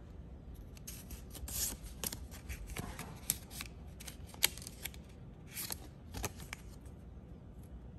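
Paper photo cards and a plastic film card being handled and slid apart: rustling and sliding with sharp little clicks and snaps, busiest from about one second in until near the end.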